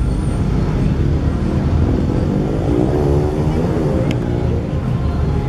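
Truck engines running in a steady low rumble, with one engine's note rising and falling around the middle, and a sharp click about four seconds in.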